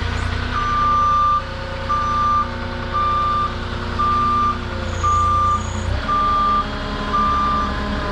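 Forklift backup alarm beeping about once a second as the machine reverses, over its engine running steadily; the engine note changes about six seconds in.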